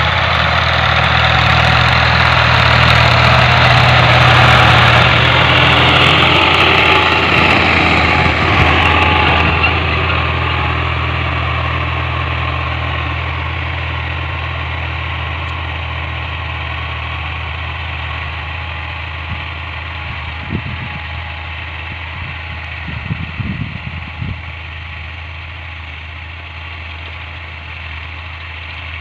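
New Holland 480S (Fiat 480) tractor's three-cylinder diesel engine running steadily while pulling a tine cultivator through tilled soil, fading gradually as the tractor drives away.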